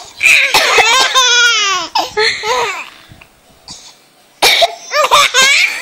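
An adult coughing playfully and a four-month-old baby laughing back in high squealing bursts. Two bouts, with a quiet gap of about two seconds between them.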